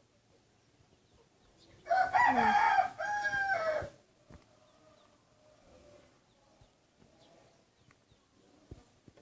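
A rooster crowing once, a loud two-part call about two seconds in that lasts roughly two seconds.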